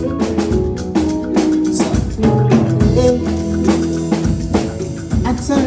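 Live band playing an instrumental passage: drum kit keeping a steady beat under bass and pitched chord instruments.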